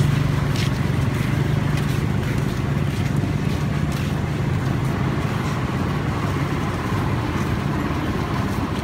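A motor vehicle's engine running steadily with a low, even hum.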